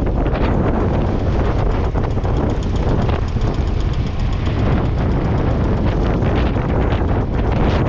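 Ferguson TED20 tractor's four-cylinder TVO engine running steadily while ploughing, with heavy wind buffeting on the microphone.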